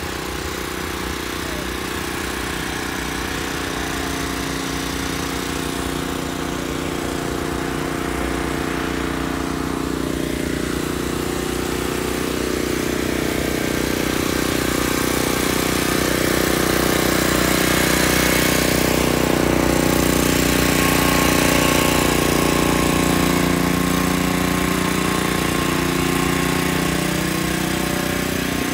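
Portable generator engine running steadily at constant speed, growing louder toward the middle and easing off near the end.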